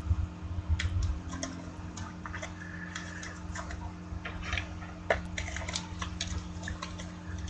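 Scattered light clicks and taps, irregular and a few per second, over a steady low electrical hum.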